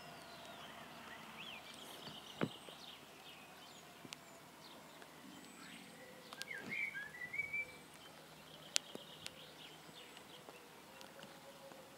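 Birds chirping intermittently over quiet street ambience, busiest a little past the middle. A few sharp ticks stand out, the loudest about two and a half seconds and nearly nine seconds in.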